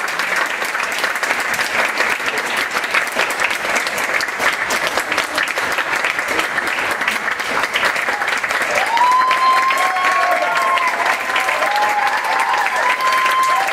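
Audience applauding, a dense steady clapping. In the second half, whooping and cheering voices rise over the clapping.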